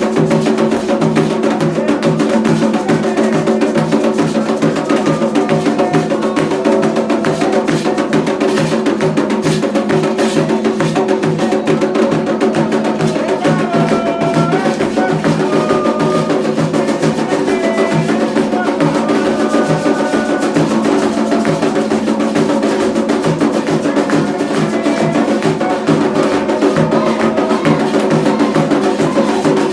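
Candomblé ritual drumming: atabaque hand drums playing a fast, steady rhythm with a clacking percussion part on top, keeping an even pulse without a break.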